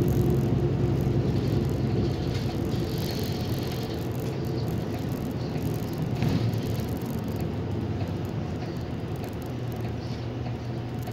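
City bus engine and road noise heard from inside the cabin as the bus drives along, a steady low hum that gradually grows quieter as the bus eases off.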